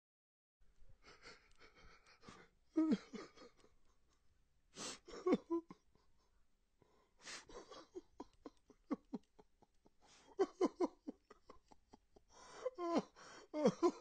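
A man crying: shaky gasping inhales and short broken sobs in quick catches, with pauses between the bouts, growing denser and louder near the end.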